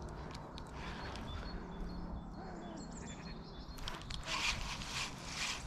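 Outdoor riverbank ambience: wind rumbling on the microphone, with a few faint bird chirps, then louder scratchy noise from about four seconds in.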